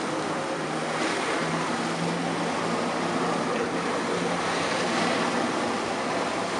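Water jetpack in hovering flight: a steady, loud rush of its twin water jets spraying down onto the lake, with a low steady engine hum from the pump that feeds it through the hose.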